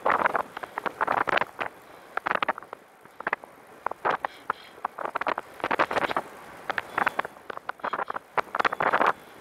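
Irregular bursts of crackling rattle from a Catrike 700 recumbent trike rolling over rough, cracked asphalt, in short clusters about every second.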